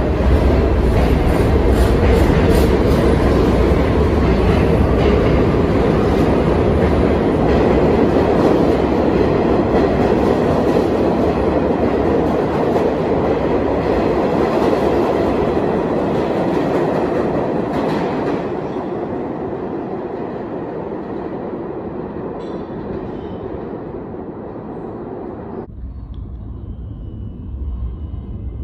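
Pullman Standard R46 subway train running along an underground platform: a loud, steady rumble of wheels and motors that dies away after about eighteen seconds. Near the end it cuts sharply to the low rumble of another train coming through the tunnel.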